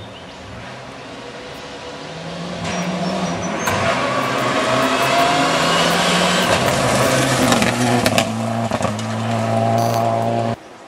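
Mitsubishi Lancer Evolution rally car's turbocharged four-cylinder engine approaching flat out on gravel, growing louder and climbing in pitch through the gears, with a few sharp cracks along the way. The sound cuts off suddenly near the end.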